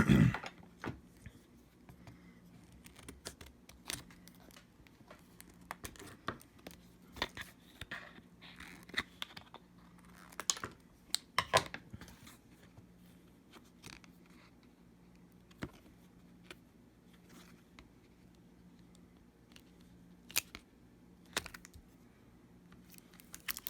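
Scattered small clicks, taps and short scrapes of hands handling a replacement laptop battery and its plastic-framed cells in an open MacBook Pro case, over a faint steady low hum.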